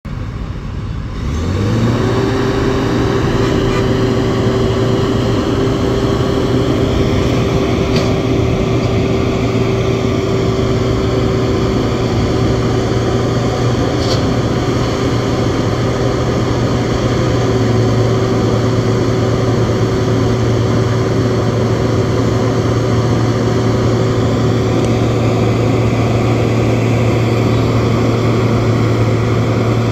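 Heavy diesel engines of an asphalt paver and a tipper truck unloading into it, running with a steady, even drone that swells up about a second and a half in.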